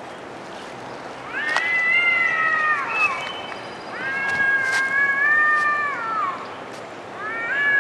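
Cats yowling at each other, the hostile drawn-out caterwauling of cats squaring off before a fight. Three long yowls: each swells up in pitch, holds, then slides down, the third starting near the end.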